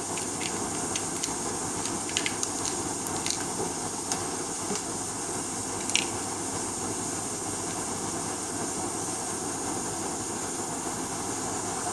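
Compressed air hissing steadily out of a CPMAS probe's magic-angle-spinning stator, escaping because parts that should hold the gas in are not yet fitted, so the rotor does not spin. Scattered light clicks in the first half, the loudest about six seconds in.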